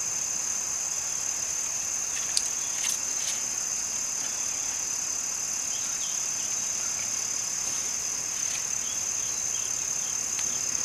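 A steady, high-pitched insect chorus drones without a break. Two brief sharp clicks come about two and a half and three seconds in.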